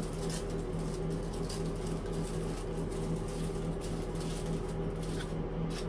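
A steady low hum, like a running appliance or fan, with a few faint light ticks and rustles over it.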